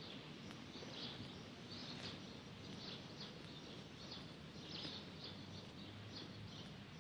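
Birds chirping faintly in short, repeated calls over a steady background hiss of outdoor ambience.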